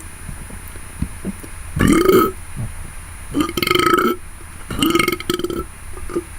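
A man burping on command three times, short deliberate burps about a second and a half apart. He himself rates these as weak, not up to his usual.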